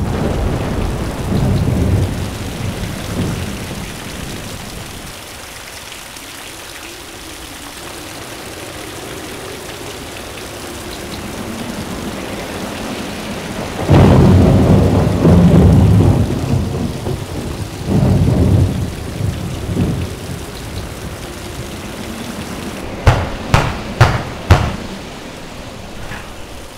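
Heavy rain falling steadily, with thunder rumbling at the start and a loud thunderclap about halfway through that rolls on for several seconds. Near the end come four sharp knocks.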